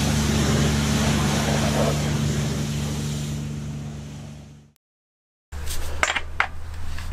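Pressure washer running, its motor humming steadily under the hiss of the water jet, fading out about four and a half seconds in. After a short silence come three sharp metallic clinks of tools.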